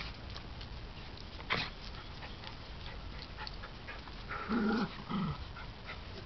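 A dog gives two short voiced sounds about four and a half seconds in, the first longer and the second brief, over scattered small clicks and one sharp tap about a second and a half in.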